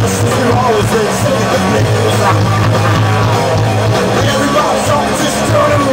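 A live rock band playing loudly: electric guitars, bass guitar and drums, with a steady, driving bass line.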